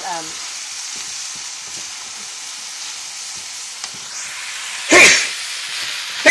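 Red curry chicken, vegetables and wide noodles sizzling in a pan as they are stir-fried, with light clicks of the utensil turning them and a louder short burst about five seconds in.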